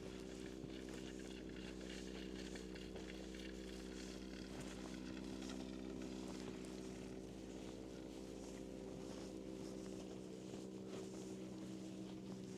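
Footsteps crunching in snow at a steady walking pace, over a steady low mechanical hum like a motor running.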